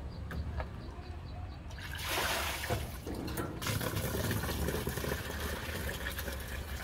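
Water running from an outdoor pipe tap into a plastic basin, splashing as vegetables are rinsed under it by hand. The splashing is louder for a moment about two seconds in.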